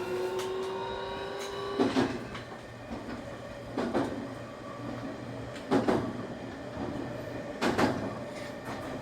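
Nankai 8300 series electric train running. The Hitachi SiC VVVF inverter whine, several steady tones rising slightly, cuts off about two seconds in. After that the wheels clack over rail joints about every two seconds, each clack a quick double knock.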